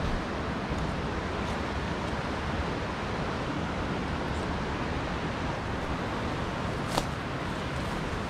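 Steady rushing of a nearby mountain stream, with one sharp click about seven seconds in.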